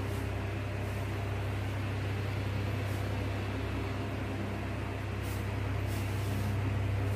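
Steady low electrical hum with even hiss: room background noise. A few faint, brief scratchy sounds come through it.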